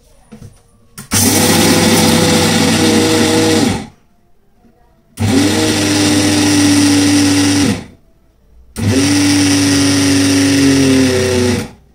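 Electric kitchen mixer-grinder (mixie) grinding roasted peanuts, run in three short pulses of two to three seconds each, switched off in between. Each time the motor spins up and winds down. This is the stop-start grinding that first turns the peanuts into powder on the way to peanut butter.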